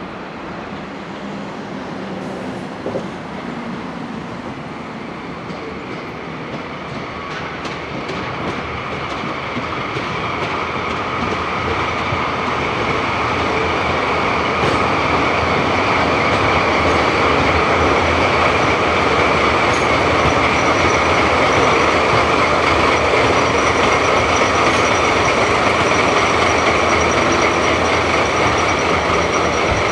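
A train running on the rails, its rolling noise growing louder over the first fifteen seconds or so and then holding steady, with a high ringing tone from the wheels on the rails.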